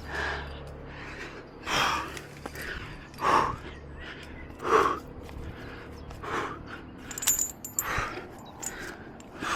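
A climber breathing hard, heavy breaths about every one and a half seconds, with a brief clinking of metal climbing gear (carabiners) about seven seconds in.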